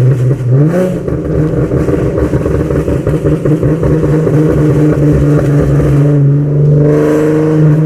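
2011 Ford Mustang's 3.7-litre V6 engine-braking in gear after a downshift, its exhaust popping and crackling rapidly on the overrun from a tune that retards ignition timing on deceleration. The engine note jumps up about half a second in, then slowly falls as the revs drop.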